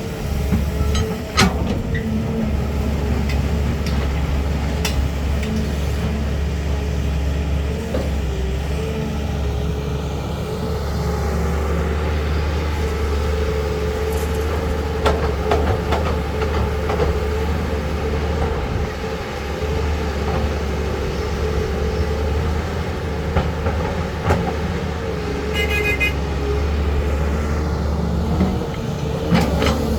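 Caterpillar 320 hydraulic excavator's diesel engine running steadily at working revs, with several sharp knocks and a brief series of high beeps about 26 seconds in.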